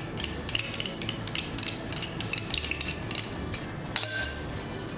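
Spoon stirring and scraping a thick sauce in a glass bowl: quick repeated clinks and scrapes, several a second, with a brief ringing clink about four seconds in.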